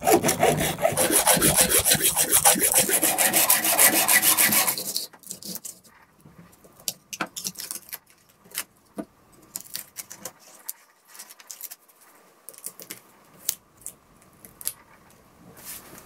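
Hacksaw cutting through the copper secondary winding of a microwave oven transformer, in rapid, even strokes. After about five seconds the sawing stops and only scattered light clicks and scrapes follow.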